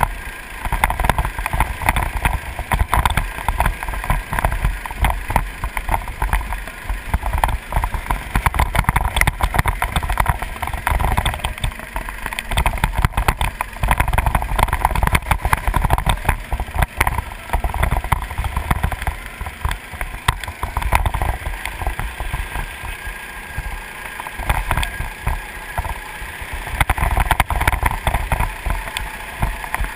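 Go-kart engine running under load through a lap, swelling and easing off as the driver accelerates and slows for corners, heard from a camera on the kart, with heavy wind buffeting on the microphone.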